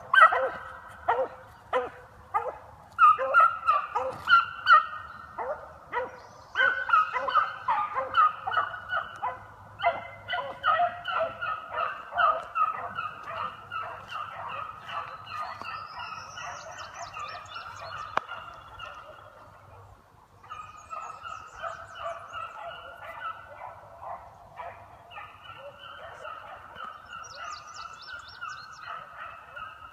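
Several beagles baying in rapid, overlapping cries, the pack in full voice on a running trail. The cries are loudest in the first half, fall away briefly about twenty seconds in, then pick up again.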